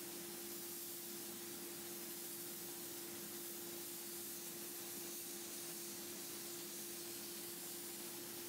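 Small soda blasting unit fed by an air compressor, spraying compressed air and baking soda onto a wooden nightstand to strip the finish: a steady, even hiss, with a steady low hum underneath.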